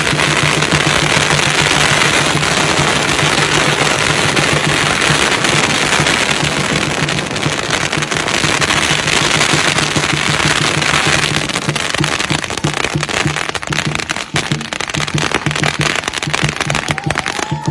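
A long string of firecrackers going off in a rapid, continuous crackle of bangs, thinning out to more separate pops in the last few seconds. A large drum beats steadily underneath.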